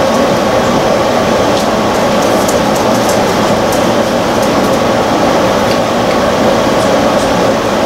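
A fan running steadily: a loud, even rushing noise with a steady hum under it.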